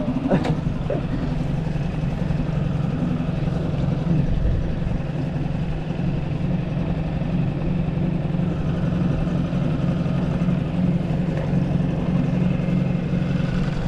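Honda 5 HP four-stroke outboard motor running steadily at low speed, pushing an inflatable skiff slowly along a no-wake channel, with an even, unchanging hum.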